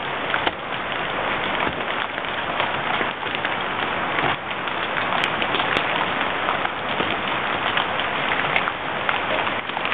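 Heavy hail, mostly nickel- to quarter-size stones with some the size of golf balls, pelting the ground and street: a dense, steady clatter of countless small impacts.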